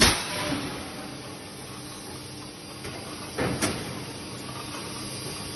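TMP Voronezh KB8542 1600-ton mechanical hot forging press running under power with a steady hum and hiss. A sharp clank comes right at the start and a double clank about three and a half seconds in as the press is worked from its control panel.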